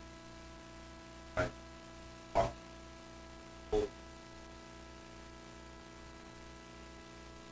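Quiet room tone with a steady hum. Three short sounds come about a second apart in the first half.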